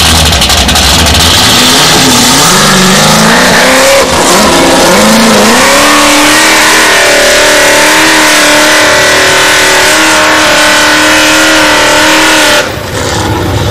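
Formula Offroad buggy's engine revving in bursts as it sets off, then held at high revs under full throttle as it climbs a steep sand hill. The sound drops away sharply about a second before the end.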